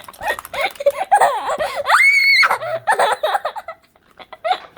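A child laughing and squealing while being tickled, with one high-pitched shriek held for about half a second a little after two seconds in.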